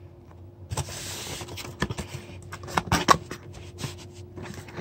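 Cardboard box and packaging being handled: a short rustle about a second in, then a series of light clicks, taps and scrapes.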